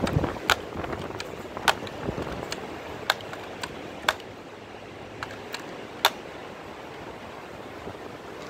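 A handful of sharp, irregularly spaced clicks and ticks over faint outdoor background noise.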